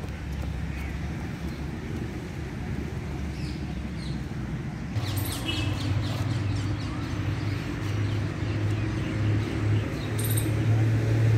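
Birds chirping in the park trees over a steady low rumble of road traffic. The traffic grows louder about halfway through, with a burst of high chirps at that point and another near the end.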